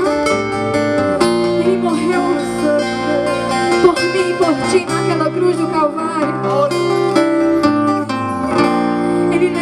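Instrumental worship music led by acoustic guitar, with held chords and a bass line that changes every few seconds.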